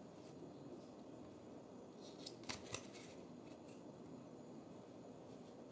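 Yu-Gi-Oh trading cards sliding against one another as a stack is thumbed through by hand, with a few sharp flicks about two and a half seconds in.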